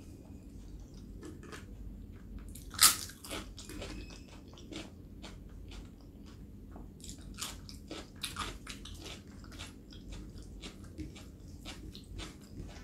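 Close-miked eating: one loud crunchy bite about three seconds in, then chewing with scattered short crunches and wet clicks from the mouth.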